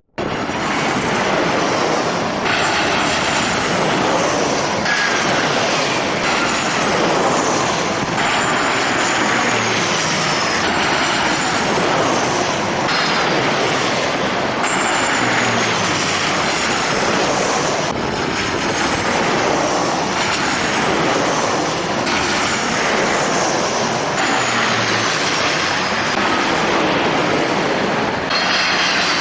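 Jet airliner engines running, a loud steady roar with thin high whines that fall in pitch and recur every few seconds.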